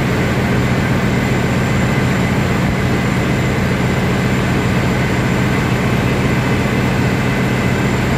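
Heavy machinery running steadily: a loud low hum with a few faint, steady whining tones above it.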